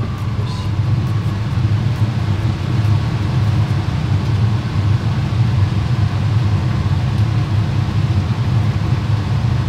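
Kitchen range hood's extractor fan running with a steady low rumble over the stove during cooking.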